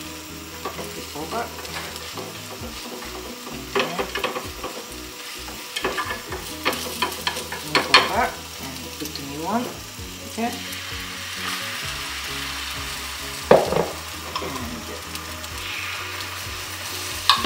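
Beaten egg sizzling in a rectangular tamagoyaki pan over a gas flame, with wooden chopsticks knocking and scraping against the pan as the omelette is rolled. Later a fresh layer of egg sizzles across the pan.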